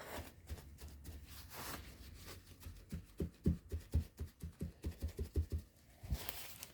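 Kitchen roll being dabbed onto damp cardstock on a tabletop to blot off sprayed water: a quick run of soft taps, about four a second, in the middle, then a brief burst of noise near the end.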